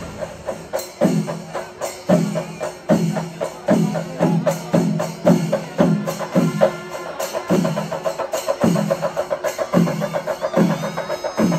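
Kerala temple percussion ensemble, chenda drums playing: a fast, dense run of sharp stick strokes over a deeper drum beat that falls about two to three times a second through the middle.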